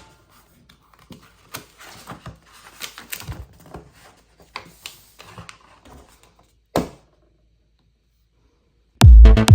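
Faint, irregular clicks and rustles of something small being handled, then one sharper click about seven seconds in. Loud electronic music with a heavy beat starts near the end.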